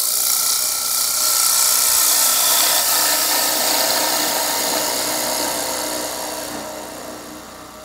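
Bowl gouge cutting the inside base of a wooden bowl spinning on a wood lathe: a steady scraping hiss as shavings come off, fading away over the last couple of seconds as the cut eases off.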